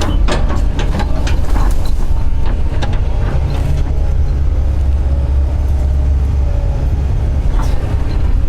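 Doosan DX140 excavator's diesel engine running under load, a heavy steady low rumble, with a series of sharp cracks and clunks in the first few seconds and again near the end as a tree is pushed over.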